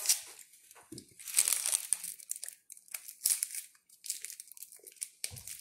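Foil crinkling in short, irregular bursts as a foil-wrapped chocolate egg is handled and its sticker peeled off.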